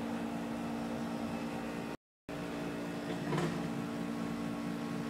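Steady low mechanical hum with a few fixed tones, cutting out completely for a moment about two seconds in. A faint short sound about three and a half seconds in.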